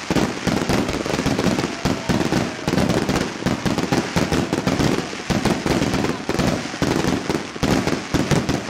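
Fireworks display: a rapid, unbroken barrage of bangs and crackles, several a second, as shells are launched and burst overhead.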